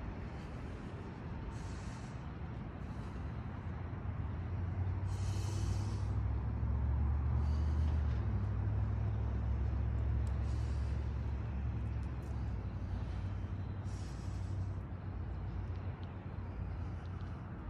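A man's short, hissing breaths every few seconds as he strains to hold a deep horse-stance squat, over a low rumble that swells about four seconds in and fades after about twelve seconds.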